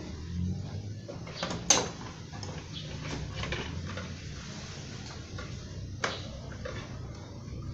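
Hard plastic fairing panels of a Kymco Super Z 125 scooter being pushed and worked into place by hand: a run of plastic clicks and knocks, the sharpest about two seconds in and another near six seconds, over a steady low hum.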